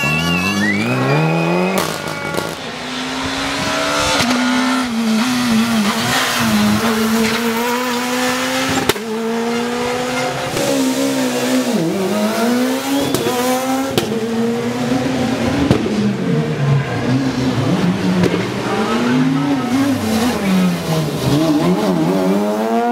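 Rally cars driven hard past one after another, their engines revving up and dropping again and again through gear changes and lifts for corners.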